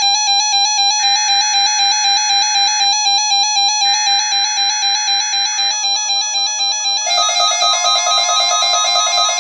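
NOAA Weather Radio test signal: two screechy digital SAME header bursts, about two seconds each, starting about a second in and about four seconds in, over a loud, rapidly pulsing electronic alert tone. About seven seconds in the pulsing tone changes and a steady higher tone joins it.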